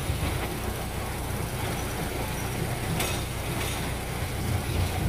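Passenger train moving slowly, heard from on board: a steady low rumble of the running train, with a single sharp clank about three seconds in.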